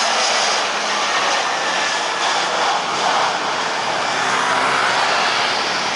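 Jet engines of an Airbus A320 airliner, a loud steady rushing noise as the aircraft touches down and rolls out along the runway.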